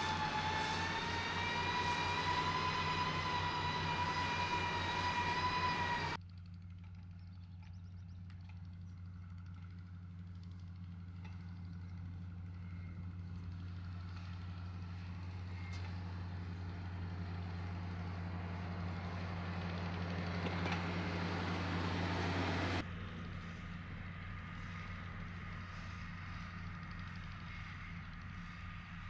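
Heavy diesel construction machinery running steadily with a low engine drone. For the first few seconds a high whine rides on top, rising slightly and then holding. The sound changes abruptly about six seconds in and again near the end.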